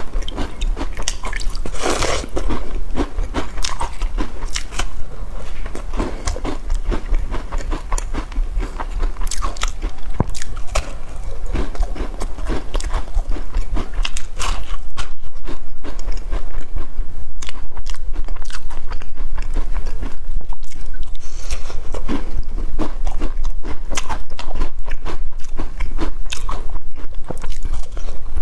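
Crisp black-sesame biscuits being bitten and chewed, a dense run of short crunches with mouth sounds, one bigger bite about two seconds in and louder chewing from about halfway.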